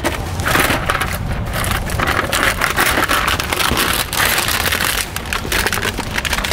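Thin plastic mince trays and their film wrap crackling and crinkling as they are squeezed and peeled to empty the mince into a steel mixing bowl.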